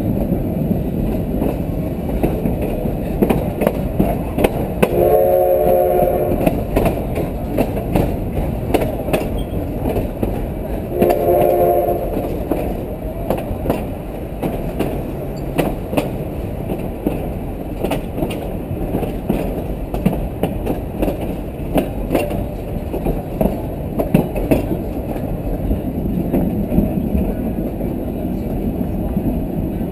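Garden-scale model train running along its outdoor track, heard from on board: a steady wheel rumble with frequent clicks over the rail joints. Its horn sounds twice, each blast a short chord of about a second, some six seconds apart.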